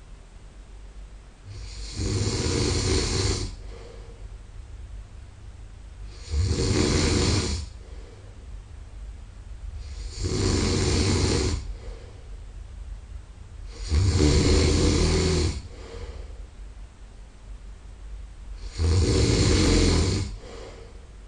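A man snoring while asleep: five loud snores, each about a second and a half long and about four seconds apart, with quieter breathing between them.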